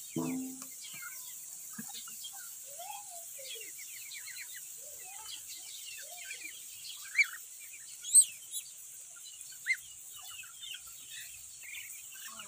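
Ducklings in a flock of Muscovy ducks peeping constantly in many short high chirps, with a few louder sharp calls about seven, eight and nine and a half seconds in.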